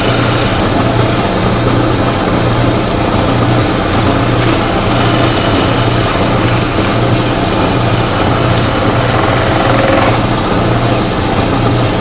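Power tool running steadily under load as it cuts a hole through the welder's adapter plate.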